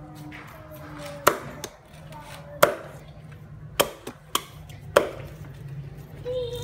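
A large kitchen knife chopping lemongrass stalks against a round wooden chopping block: five sharp chops, irregularly spaced about a second apart.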